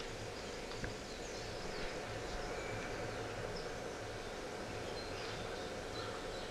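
Faint outdoor ambience sound effect: scattered short, high bird chirps over a steady hiss and low hum.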